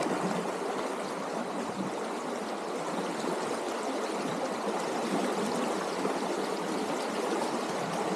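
A river flowing, a steady even rush of running water.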